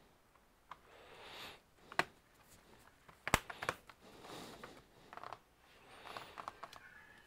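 Gloved hands handling a laptop and pressing down on its bottom cover: a few sharp clicks and knocks, the loudest about three seconds in, with soft rubbing and rustling in between.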